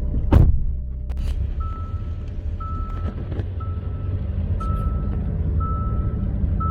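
Car's in-cabin warning beep repeating about once a second over the low rumble of the car, after a thump and a click near the start.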